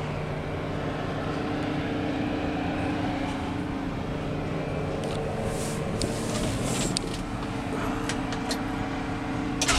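383 stroker small-block V8 idling steadily, heard from inside the cab, with a few light clicks in the middle. Right at the end it begins to rev.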